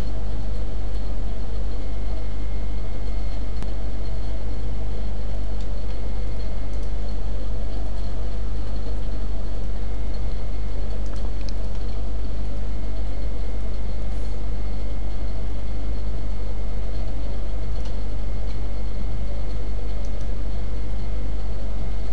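Steady low electrical hum with hiss, unchanging throughout, with a few faint clicks.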